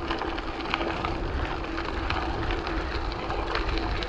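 Bicycle rolling along a gravel trail: tyres crunching over loose gravel with small rattles and clicks from the bike, over a steady low rumble of wind on the handlebar-mounted camera's microphone and a faint steady hum.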